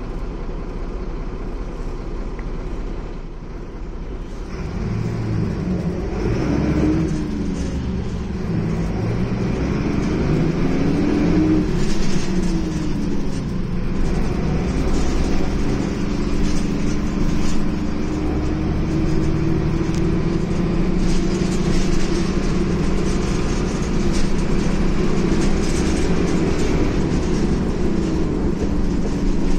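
Ikarus E94.53 city bus heard from inside the passenger saloon as it pulls away: the diesel engine's pitch rises and drops twice as the bus gathers speed, then settles into a steady drone with road rumble while it cruises.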